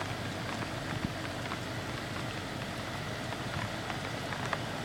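Steady rain from a sun shower coming down fairly heavily, an even hiss with the odd drop ticking close to the microphone.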